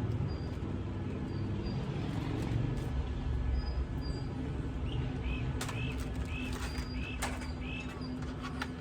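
A bird chirping outdoors: a quick series of about six short chirps in the second half, over a steady low hum and rumble, with a couple of sharp clicks.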